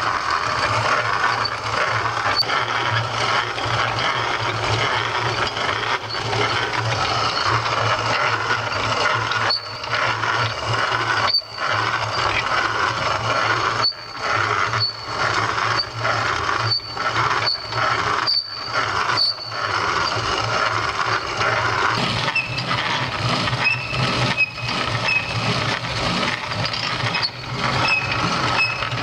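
C.S. Bell No. 2 hand-crank meal grinder grinding wheat into flour: a continuous gritty grinding as the crank turns, with brief breaks every second or two and a thin squeak that recurs.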